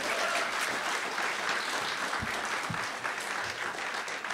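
An audience applauding steadily: many hands clapping together.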